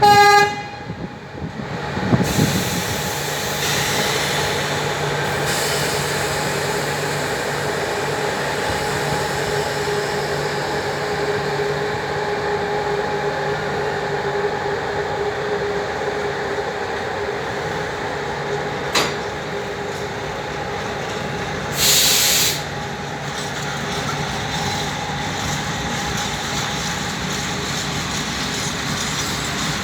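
Train at the station, running with a steady hum and drone. A pitched tone ends right at the start, there is a sharp click about 19 seconds in, and a short hiss about 22 seconds in.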